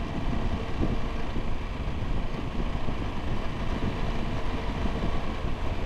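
Triumph Tiger 1200 GT Explorer's three-cylinder engine running steadily while riding along, with wind rushing over the microphone.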